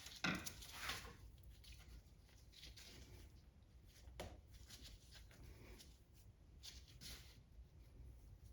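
Near silence with faint, scattered handling noises: a few light clicks and rubbing sounds as a part is fitted by hand onto a driveshaft's double cardan joint.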